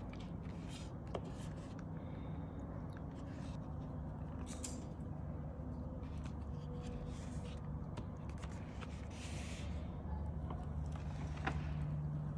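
A leather wallet being handled and opened by hand: scattered soft rustles and small scuffs, with one slightly sharper tick near the end, over a steady low room hum.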